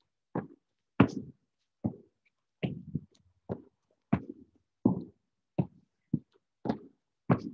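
Repeated thuds and slaps of hands and feet landing on a rubber gym floor as two people do down-ups (half burpees), an uneven beat of about one and a half knocks a second.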